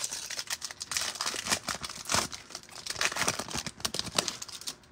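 Foil trading-card pack being torn open and crinkled by hand as the cards are pulled out: a dense run of irregular crackles that stops shortly before the end.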